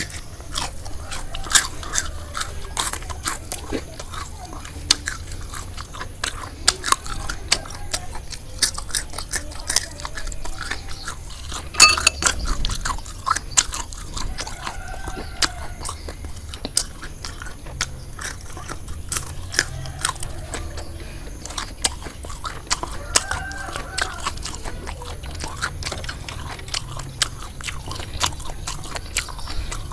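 Close-up crunching and chewing of crisp deep-fried battered frog: many sharp crackling bites with chewing in between, the loudest crunch about twelve seconds in.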